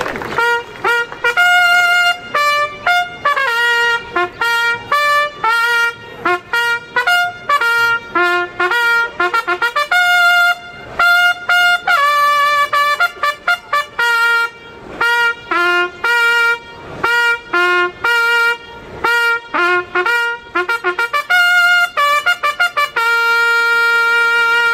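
A solo trumpet plays a bugle call, a string of short and longer notes on the few pitches of a bugle's range. It ends on one long held note.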